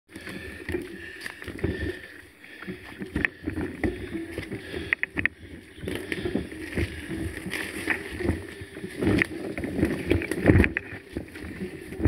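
Mountain bike rattling and knocking as it rolls over a rough dirt trail, picked up through a camera mounted on the bike: frequent irregular thumps and clatter over a low rumble, with a faint steady high tone underneath.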